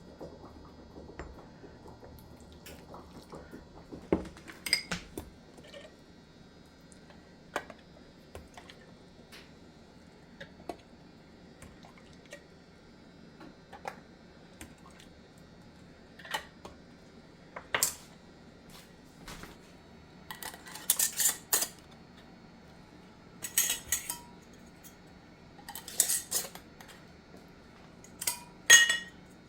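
Clinking and clattering of kitchen dishes and utensils: scattered knocks at first, then busier bursts of clatter in the second half.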